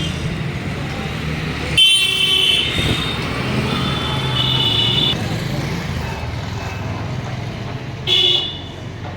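Busy street traffic: a steady rumble of engines and voices, with vehicle horns honking three times, short and loud about two seconds in, longer around the middle, and short again near the end.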